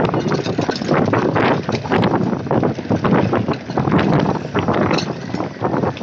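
Mountain bike riding down a rough dirt trail: wind buffeting the microphone, with many short knocks and rattles from the bike and its tyres over the ground.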